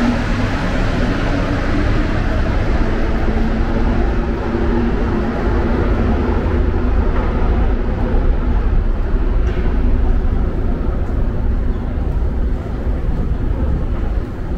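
Rubber-tyred Montreal Metro train running through the station: a steady loud rumble with a low hum.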